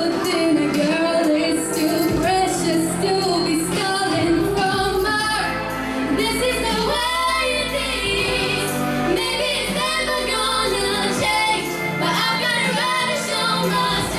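Two girls singing a pop song live into handheld microphones over a recorded backing track, their sung lines continuous over the accompaniment.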